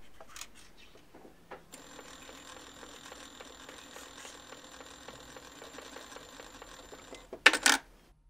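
A few short scratches, then a sewing machine runs steadily for about five and a half seconds with a faint high whine and stops abruptly; a few loud clacks follow near the end.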